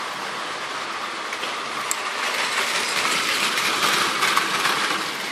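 Battery-powered Plarail toy train running on plastic track, its geared motor whirring and wheels rattling over the track joints. It grows louder as the train passes close, loudest around four seconds in.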